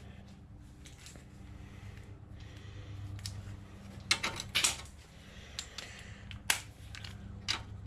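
Metal sockets clicking and clacking as they are pulled off a socket rail and snapped onto a cordless impact driver, a cluster of clicks about halfway through and a sharp click later on, over a steady low hum.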